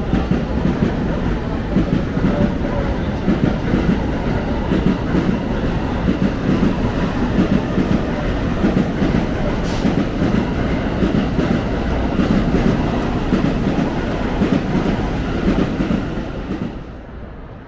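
Train running on nearby rails in a station, loud and continuous, its wheels clattering over the rail joints with a steady stream of small knocks; the sound falls away suddenly near the end.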